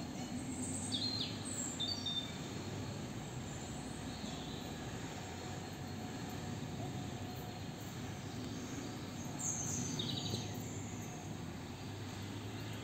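Steady low outdoor background rumble, with a few short high chirps about a second in and again around ten seconds in.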